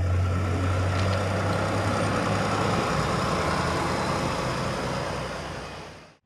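Heavy vehicle engine running steadily with a deep hum, fading out just before the end.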